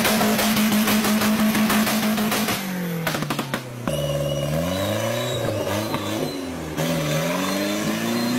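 Engine sound revving up and down in pitch, held steady for the first couple of seconds, then cut off and restarted abruptly about two and a half, four and seven seconds in.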